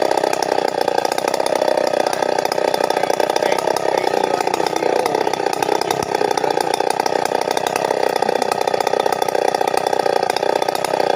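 Stihl 070 chainsaw's big single-cylinder two-stroke engine running steadily, sawing through a jackfruit trunk.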